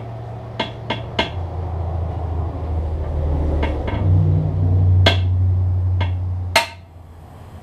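Hard tool tapping on the glass neck of a CRT picture tube to break its vacuum: about eight sharp taps, a few close together, the loudest near the end. A steady low sound runs underneath and stops with that last tap.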